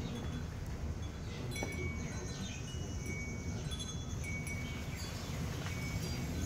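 Scattered high, clear ringing tones, like chimes, a few notes at a time at several different pitches, over a steady low outdoor rumble.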